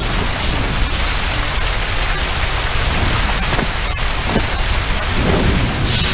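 Anime battle sound effects: heavy rain and a deep rumbling rush of fire, with a few sharp crackles and a brighter surge of flame near the end.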